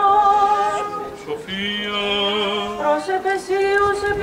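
Greek Orthodox liturgical chanting: voices sing long held, slowly ornamented notes without a break. A low steady note joins about a second and a half in and drops out a second later.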